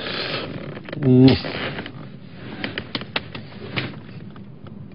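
A short murmured vocal sound about a second in, with soft rustling and a scatter of small sharp clicks after it.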